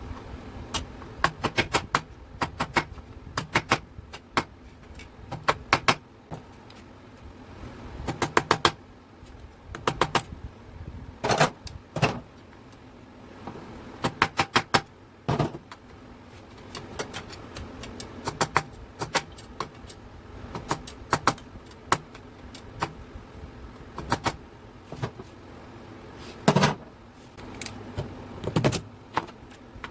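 Sharp metallic clicks and clinks from hand tools and engine parts during clutch disassembly on a Yamaha Virago 1100 engine. They come irregularly throughout, some in quick runs of several, over a faint steady hum.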